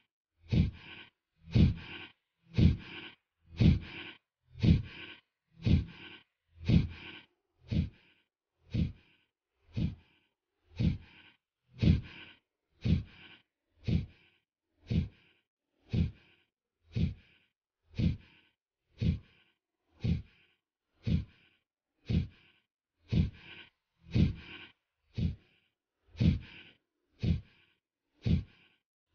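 Kapalbhati pranayama breathing: short, forceful exhalations pushed out through the nose, evenly spaced at about one a second.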